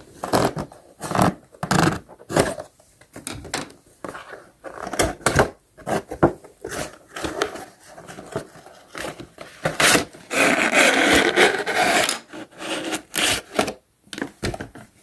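A cardboard toy box being opened and handled by hand: irregular scrapes, rubs and knocks of cardboard, with a longer steady scraping stretch about ten seconds in.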